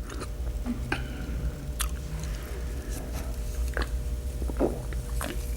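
Close-miked mouth sounds of a person chewing crunchy radish: scattered wet smacks and clicks.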